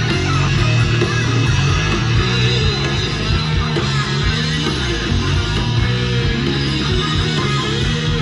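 Guitar-driven heavy rock music with a strong low end, played back from a Tascam MSR-16 16-track reel-to-reel tape recorder. It is a rough multitrack recording that has not yet been mixed down.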